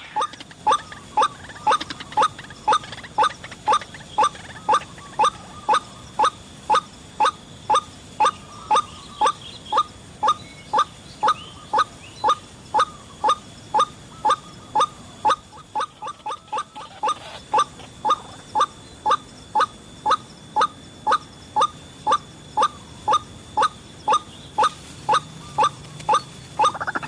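White-breasted waterhen calling: one short note repeated very evenly, about two a second. It falters briefly about two-thirds of the way through.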